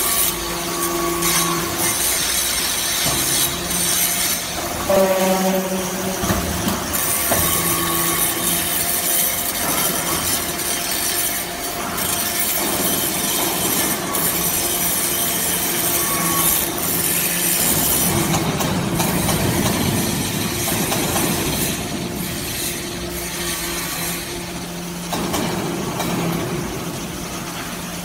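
Metal-chip conveyor feeding a hydraulic briquetting press, rattling and scraping steadily as the chips ride up its steel slats, with a machine hum underneath.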